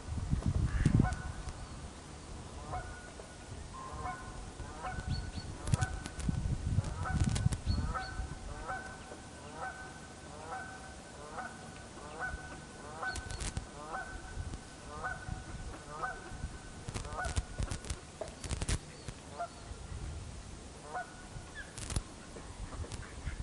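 Birds calling off-screen: a long run of short, repeated calls, about two a second, trailing off and returning briefly near the end. Low rumbles of wind buffeting the microphone come and go, loudest about a second in and again in the middle.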